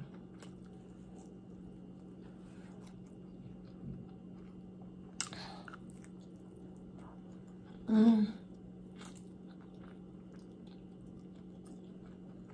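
Close-miked eating of a barbecued pork rib: faint chewing and mouth clicks, a short wet mouth noise about five seconds in, and a brief hummed "mmm" of enjoyment about eight seconds in, over a steady low hum.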